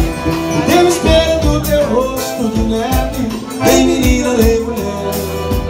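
Live forró pé-de-serra band playing: a piano accordion melody over a steady beat from a zabumba bass drum and drum kit.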